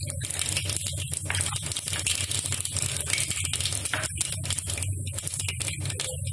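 Mustard seeds and whole dried red chillies frying in hot oil for a tadka, with a dense run of quick, irregular crackles and pops over a steady sizzle.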